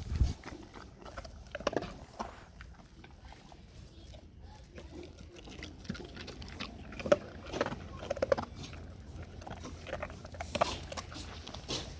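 Dog eating treats: irregular chewing, crunching and smacking noises, the sharpest about seven seconds in.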